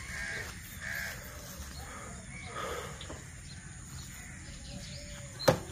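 Birds calling in short, scattered calls, with one sharp knock about five and a half seconds in.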